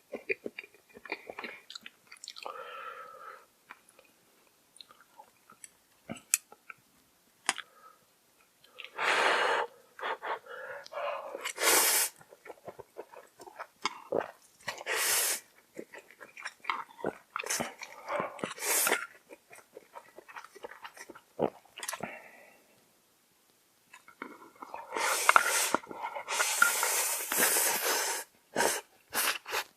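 Close-miked eating of instant noodles: chewing and mouth clicks, broken by several sharp slurps, with a longer run of slurping near the end.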